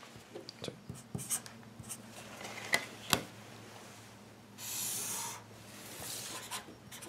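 Marker pen drawing straight lines on paper along a plastic ruler, with scattered light taps and clicks as the ruler is shifted and set down. One longer, steady pen stroke of nearly a second comes about two-thirds of the way in.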